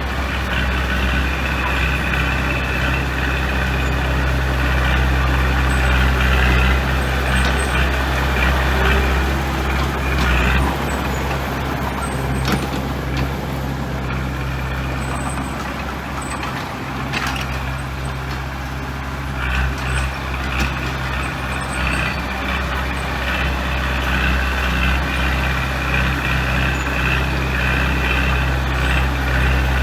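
Heavy diesel construction machinery running steadily under load, with a few short metallic knocks around the middle. The engine eases off for a few seconds about two-thirds of the way through, then picks up again.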